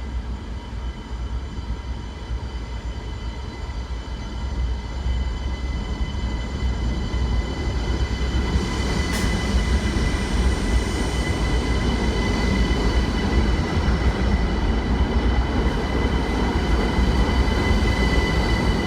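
Train running on the rails: a steady low rumble with high, steady whining tones over it, growing louder a few seconds in.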